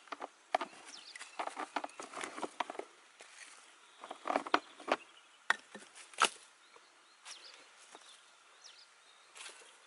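Short pieces of dead wood clattering and knocking together as they are rummaged in a bucket and laid among branches: irregular clusters of sharp clicks, busiest in the first two-thirds and thinning out near the end.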